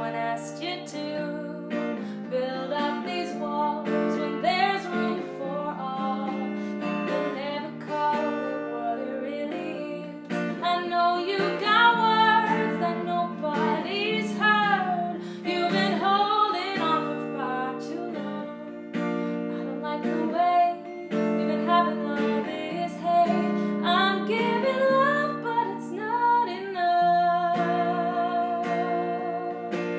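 Strummed acoustic guitar with a woman singing a song melody over it.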